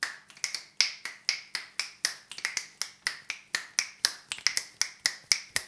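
Fingers snapping in an even rhythm of about four snaps a second.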